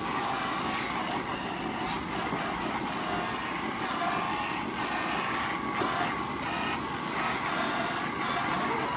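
Steady mechanical whirring of a handheld rotary teat-cleaning brush running on a cow's teats, with water spraying from it.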